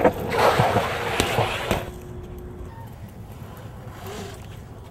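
BMX bike rolling on concrete: tyre noise with a couple of light knocks from the bike, dying down after about two seconds to a faint steady background.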